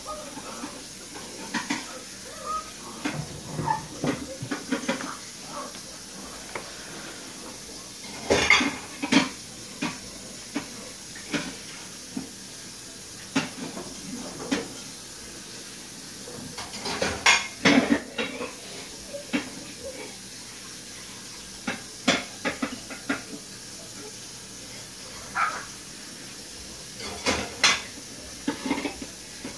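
Bursts of light clattering and knocking on concrete, in several clusters a few seconds apart, as two Shiba Inu puppies play among plastic bottles and toys.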